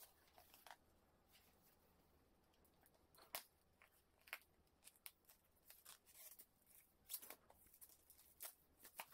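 Faint crinkling and crackling of plastic shrink-wrap film as hands handle a plastic meal box and pick the wrap loose, a run of short, irregular crackles and rustles.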